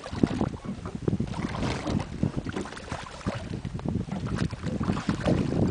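A hooked golden dorado thrashing at the surface next to a boat, splashing irregularly, over water lapping and wind buffeting the microphone, which grows louder near the end.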